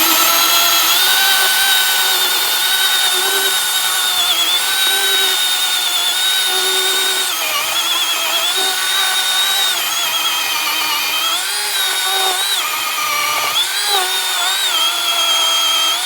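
Milwaukee 20-inch battery-powered chainsaw running at full speed with a steady high whine, its pitch sagging and recovering several times as the chain bites into wood.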